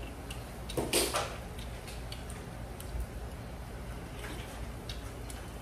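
Light clicks of scallop shells and utensils as people eat around a grill, with one brief louder rustle about a second in, over a steady low hum.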